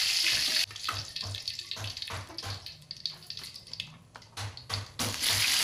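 Hot cooking oil sizzling in a wok while fried pieces are lifted out; the sizzle cuts off abruptly under a second in, leaving quieter clinks and taps of a metal spoon, and a loud sizzle starts again near the end.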